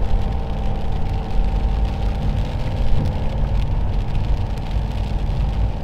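Car engine running with a steady low hum and rumble, heard from inside the vehicle.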